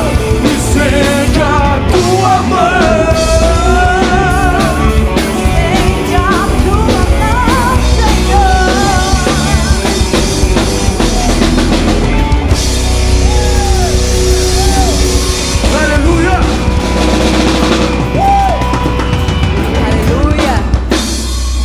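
Live rock band music: a drum kit and bass pounding under a wavering lead melody, with a bright cymbal wash swelling in a little past halfway.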